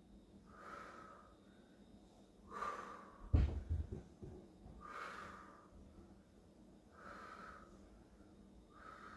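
A woman's controlled exertion breaths during a leg exercise, about five breaths spaced roughly two seconds apart. A low thud sounds about three and a half seconds in.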